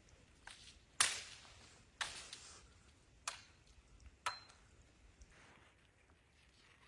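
A handful of sharp clicks and knocks, roughly one a second, the loudest about a second in, one of them with a brief ringing ping just after four seconds in.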